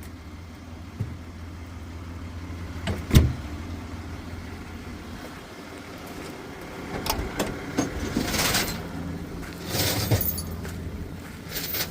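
A vehicle engine idling steadily, with one sharp knock about three seconds in and several clinks and rustles later on.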